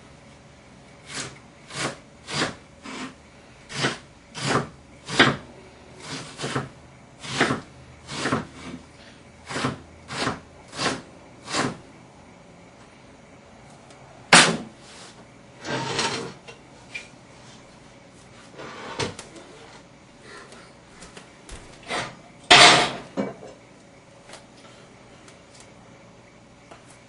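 Knife chopping on a cutting board in steady strokes, about one and a half a second, for around ten seconds; then a few scattered, louder knocks and clatters of kitchen things being handled.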